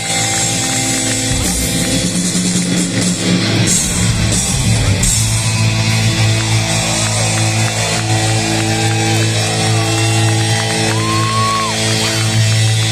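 Live hard rock band playing loud over a stadium PA: distorted electric guitar with several bent notes over a held low bass note.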